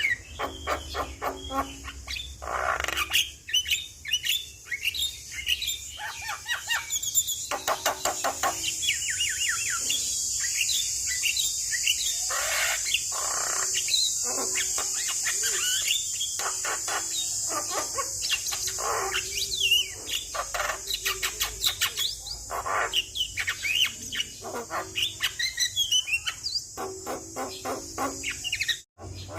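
Javan myna (jalak kebo) calling vigorously: rapid runs of short, harsh chattering notes and squeaky phrases repeated one after another, over a steady high hiss. The sound cuts out briefly near the end.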